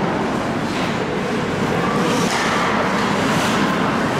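Steady, reverberant din of an ice hockey game in an indoor rink, with skates scraping the ice now and then.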